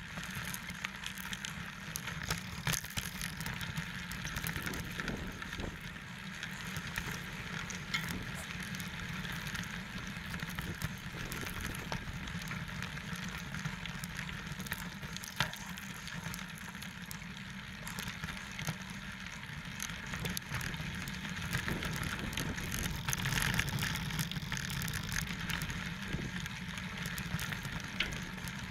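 29er mountain bike rolling over a rocky dirt trail: steady tyre noise with constant small clicks, knocks and rattles from the bike jolting over stones.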